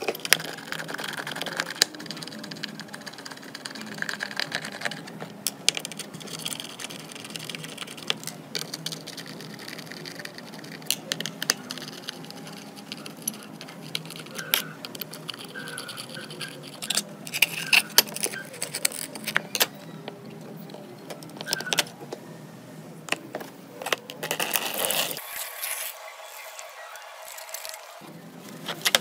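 Small screwdriver working the screws out of a desktop hard drive's metal top cover: scattered light metallic clicks, ticks and scrapes, with small screws clinking.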